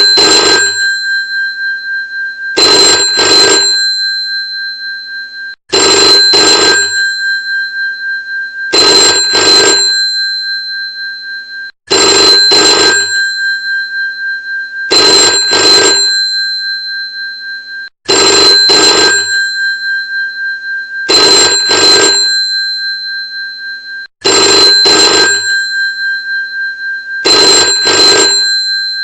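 Old telephone bell ringing over and over. Each ring starts suddenly, pulses, and fades away, and a new ring starts about every six seconds.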